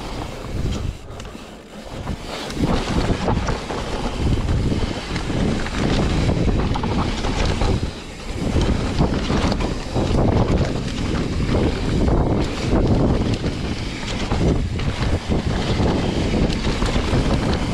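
Wind rushing over the microphone and a mountain bike's tyres rolling fast over dirt singletrack, with many small knocks and rattles from the bike over the rough trail. Louder from about two seconds in, with a brief dip about eight seconds in.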